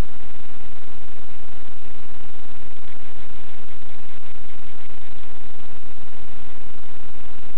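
Loud, steady static hiss with a buzz through it, unchanging throughout. This is electronic noise from the recording camera's own microphone and circuitry.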